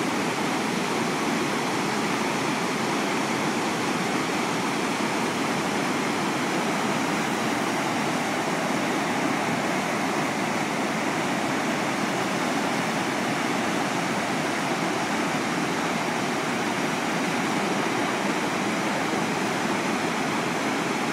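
The Mississippi River in flood, at about 30,000 cubic feet per second, pouring over the concrete spillway of St. Anthony Falls: a steady, unbroken rush of falling water.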